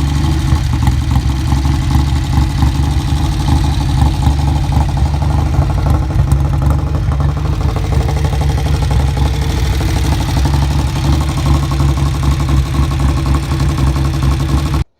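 Stihl 009 two-stroke chainsaw engine running at a steady speed, cutting off suddenly just before the end.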